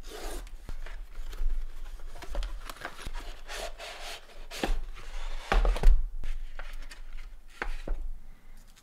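Cardboard product box being opened by hand: cardboard and paper packaging sliding and scraping, with a few short taps and knocks as the pieces are handled, the loudest about five and a half seconds in.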